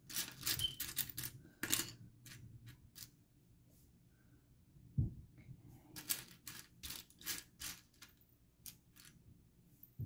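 Small plastic building bricks clicking and clattering against each other as a hand rummages through a loose pile of them, in quick runs of clicks with a sparser lull in between and a single low thump about five seconds in.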